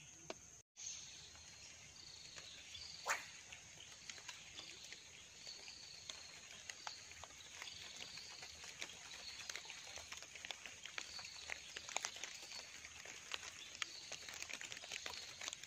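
Faint outdoor ambience of an animal's short chirping calls, repeated steadily a little more than once a second, over scattered light ticks. The sound cuts out briefly just under a second in, and there is a sharp click about three seconds in.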